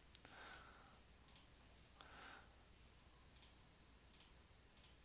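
Near silence with a few faint computer mouse clicks, spaced about a second apart.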